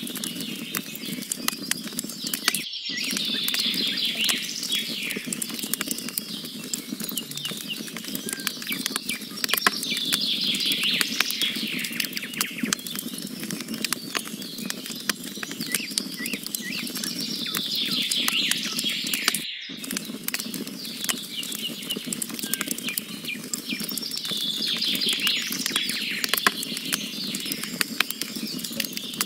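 Wood fire crackling and popping steadily as a log burns. A songbird sings a high trilled phrase four times, about every seven seconds, louder than the fire. The sound cuts out for an instant twice.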